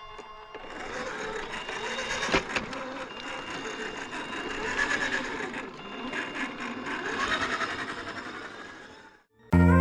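RC4WD Trailfinder 2 scale crawler's brushed motor and two-speed gearbox whining as the truck drives, the pitch wavering up and down with the throttle, with a sharp click about two seconds in. The drive sound cuts off near the end and guitar music begins.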